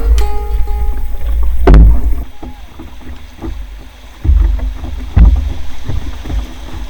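Canoe paddling on a river: paddle strokes and water splashing, with a heavy low rumble of wind buffeting the microphone that swells and drops. A couple of sharper knocks or splashes come about two and five seconds in.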